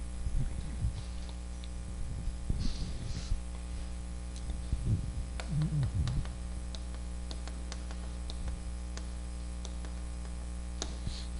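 Chalk clicking and scratching on a chalkboard as a heading is written, a run of sharp taps from about five seconds in, over a steady electrical hum. In the first few seconds an eraser rubs the board briefly.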